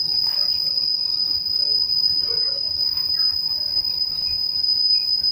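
Passenger train's brakes squealing as it slows alongside a station platform: one loud, steady, high-pitched squeal.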